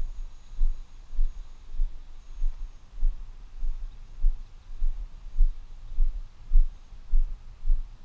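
Regular low thumps, about one every 0.6 s, in a walking rhythm, picked up by a hat-mounted GoPro, most likely the wearer's footsteps jolting the camera. Over them runs a faint high whine from the electric ducted-fan jet, which fades in the first second or two.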